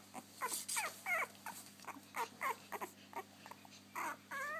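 Puppy whimpering: a string of short, high squeaks that each fall in pitch, about two a second, with a longer wavering whine near the end. It is the puppy wanting to be let out.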